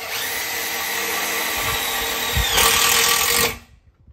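Cordless drill running steadily as it drives a screw into the face of an aluminium gate's lock mechanism. It gets louder for its last second, then stops suddenly.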